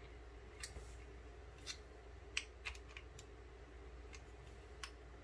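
Faint, scattered light clicks of a small screwdriver tip working against a lightsaber's metal hilt, pushing the stuck electronics chassis loose. There are about seven ticks, spaced unevenly.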